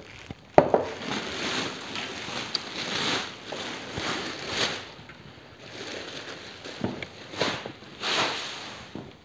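Clear plastic bag rustling and crinkling in uneven bursts as it is pulled off a small petrol engine, with one sharp knock about half a second in.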